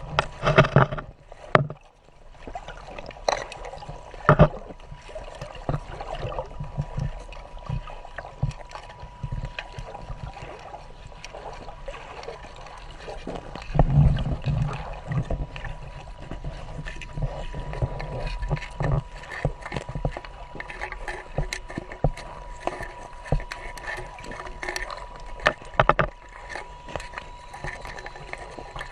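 Water sounds and irregular knocking and clattering aboard a fishing boat, with a few heavier low thumps and a faint steady high hum.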